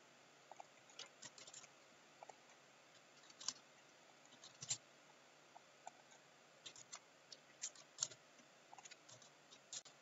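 Faint, irregular clicking of typing on a computer keyboard, with a few louder mouse clicks in between.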